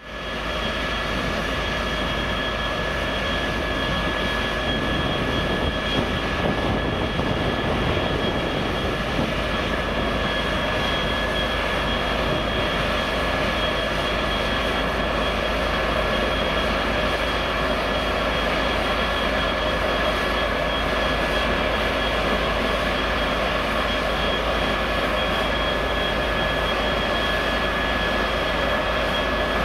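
2TE25K "Peresvet" two-section diesel-electric freight locomotive standing with its diesel engines running: a steady drone with a steady high-pitched whine over it.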